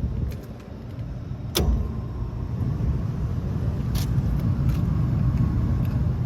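A relay clicks about a second and a half in, and the Lennox rooftop unit's blower comes on, running with a steady low rumble as the unit answers a call for fan in test mode.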